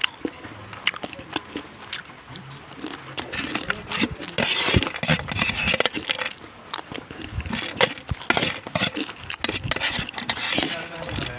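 Close-miked eating: chewing and crunching food, with many sharp clicks and a louder stretch of crackly crunching about four to six seconds in.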